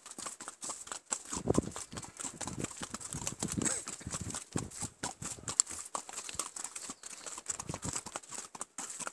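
Horse's hooves clopping on a path while it is ridden, an irregular run of knocks.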